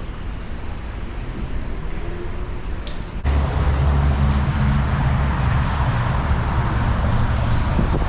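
Wind rushing on the microphone, then from about three seconds in a sudden, steady low engine hum that stays even to the end.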